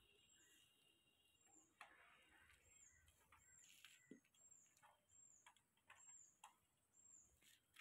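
Near silence, with a faint high chirp repeating at fairly even intervals and a few soft clicks.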